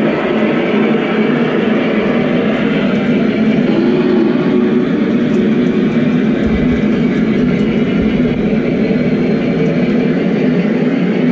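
Lionel O gauge model freight train running past on the layout track: a steady rolling rumble of wheels on rail, somewhat louder from the middle on.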